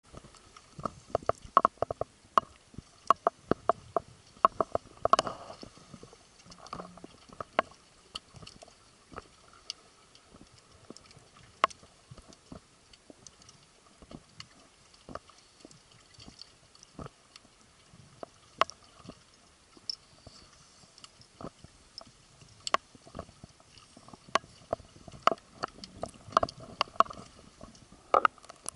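Underwater sound picked up by a camera in a waterproof housing: scattered sharp clicks and crackles over a faint hiss, thickest in the first few seconds and again near the end.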